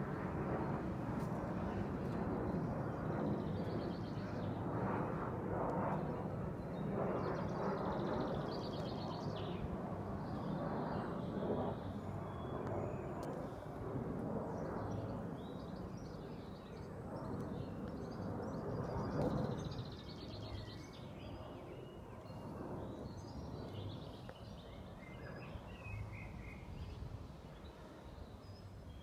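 A low, steady rumble that fades away over the second half, with small birds chirping throughout.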